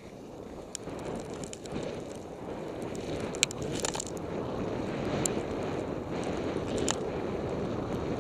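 Skis gliding through deep powder snow, heard as a steady rush mixed with wind on the microphone. A few sharp clicks and knocks come through, the loudest about three and a half seconds in.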